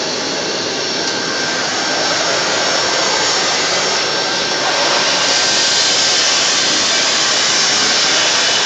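Vacuum sack lifter's suction blower running steadily: a continuous rushing hiss of drawn air while its suction pad grips and carries the sacks.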